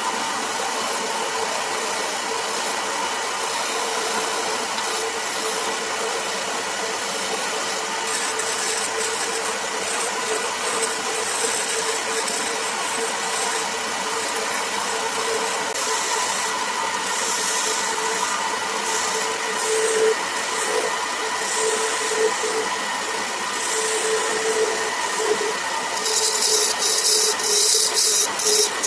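Wood lathe running with a steady motor hum while a turning chisel cuts into the spinning wooden spindle, making intermittent hissing, scraping cuts that get heavier near the end.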